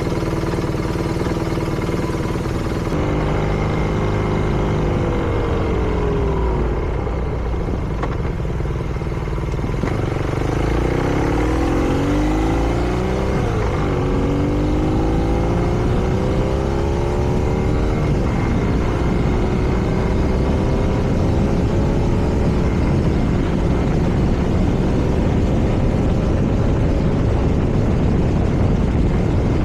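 BMW R nineT's air/oil-cooled boxer twin on the move: the engine note falls away, then climbs under acceleration with a brief dip at a gear change about halfway through, before settling to a steady cruise. Wind noise rises underneath in the last part.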